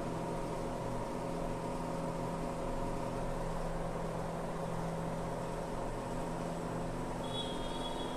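Steady mechanical hum of a running machine at an unchanging pitch, with a brief high chirp near the end.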